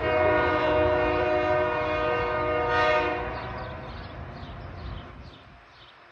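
Metro-North commuter train's horn sounding one long blast of about three seconds, followed by the train's rumble fading as it pulls away.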